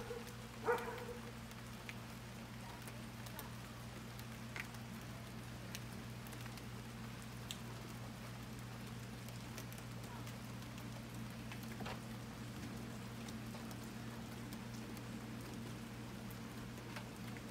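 A dog barks once, less than a second in. After that only a steady low hum remains, with a few faint scattered ticks.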